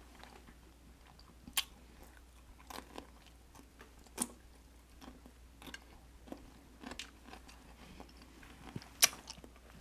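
Close-up mouth sounds of eating: quiet chewing with scattered wet smacks and clicks, the sharpest about one and a half seconds in, four seconds in and nine seconds in.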